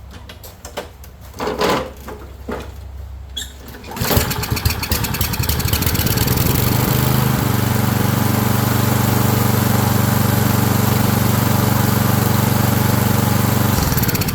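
Kohler single-cylinder engine on a Toro self-propelled lawn mower, pull-started. After a few pulls it catches about four seconds in, runs roughly, then settles into steady running and cuts out abruptly near the end. It fires only on sprayed-in starting fluid, the sign that the carburetor is not feeding fuel.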